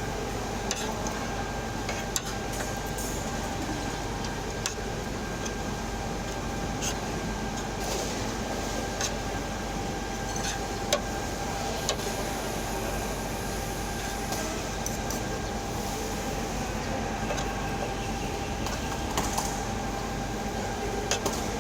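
Steady background hum of a market eatery, with a faint constant whine running through it and scattered sharp clicks.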